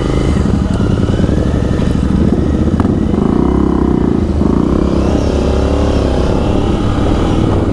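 Royal Enfield Continental GT 650 parallel-twin engine accelerating away, its pitch climbing as it pulls through the gears.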